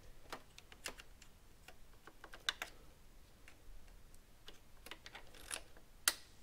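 Scattered light clicks and ticks, about a dozen, irregularly spaced, the sharpest about two and a half seconds in and near the end.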